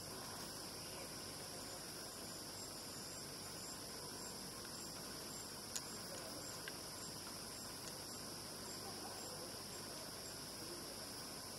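Steady chorus of forest insects: a continuous high-pitched hiss with a faint chirp repeating about twice a second. A single sharp click sounds near the middle.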